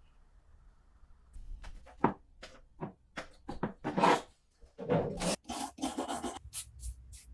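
Rusty pistol parts being rubbed and scraped by hand in a string of irregular short strokes, starting about a second in.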